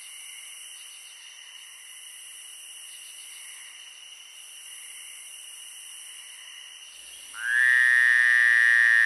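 Night ambience of chirping insects, then about seven seconds in a loud frog croak starts and holds steady for nearly two seconds.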